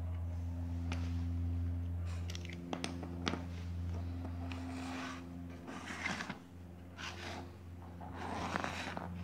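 Homemade compressed-air engine with a brass cylinder and valve: irregular hisses of air and a few light clicks from the valve and linkage, over a steady low hum.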